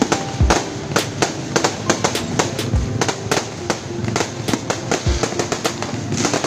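Fireworks going off: rapid, irregular bangs and crackles, several a second, with a deeper boom about every two seconds.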